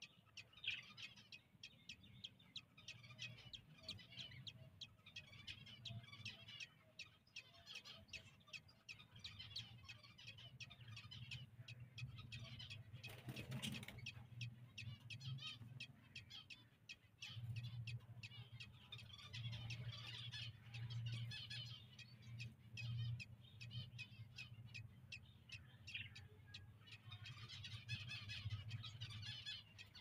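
Budgerigars chirping: faint, rapid, high cheeps coming thick and fast throughout, over a low steady hum. A brief burst of noise cuts in about halfway through.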